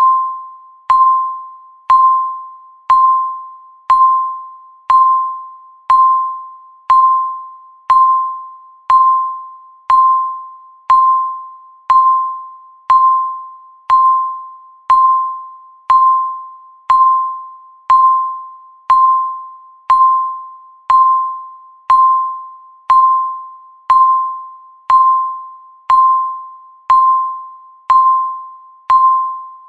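Countdown timer beeping once a second: a single electronic tone, sharp at the start and fading away before the next one, repeating evenly.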